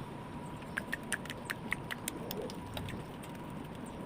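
Runny clay-and-soap slime mixture being stirred, giving a quick run of small sticky clicks and pops for about a second, over a faint steady hum.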